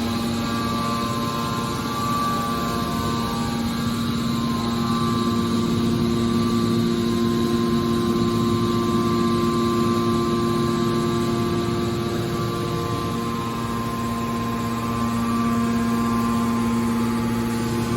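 Hydraulic power unit of an automatic metal baler running with a steady hum and whine of several constant tones. Its low tone shifts slightly about thirteen seconds in.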